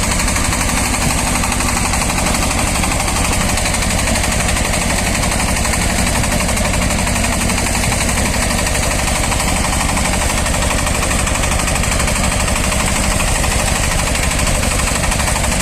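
Shifeng SF-240 minitractor's diesel engine running steadily under load with a rapid, even clatter as it pulls a rotary tiller through garden soil.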